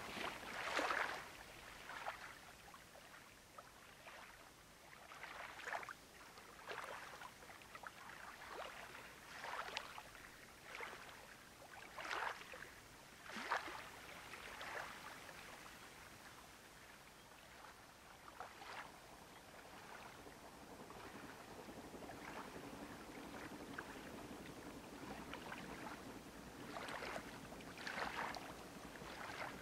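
Small waves lapping irregularly against the lakeshore, a scatter of soft splashes. In the last several seconds the low, steady rumble of a distant train on the far shore slowly grows beneath the lapping.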